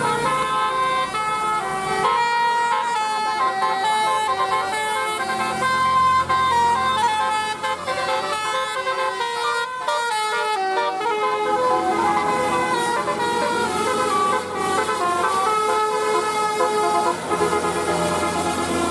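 Telolet bus horns, the multi-tone musical air horns of Indonesian buses, playing fast tunes of short stepped notes with several tones sounding together, almost without a break.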